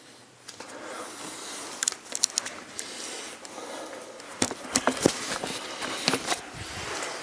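Rustling and crunching noise with a run of sharp clicks and knocks, loudest around the middle.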